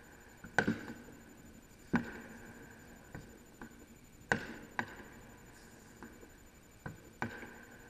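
Fireworks going off: about seven irregular sharp bangs, a couple in quick pairs, each with a short echoing tail.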